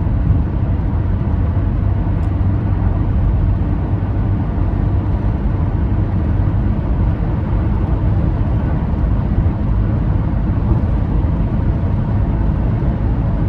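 A steady low rumble of background noise that runs evenly with no distinct events.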